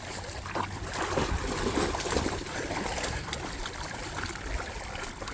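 Shallow seawater sloshing and trickling as basset hounds wade through it.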